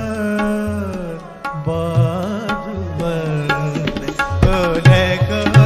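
Hindustani thumri in raag Bhairavi: a male voice holds and bends long sung notes over tabla playing a steady rhythm with deep bass-drum strokes.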